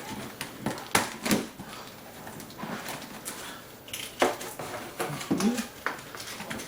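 Irregular clacks and knocks of hard objects being handled, about a dozen sharp strokes spaced unevenly, with a short low squeak or grunt about five seconds in.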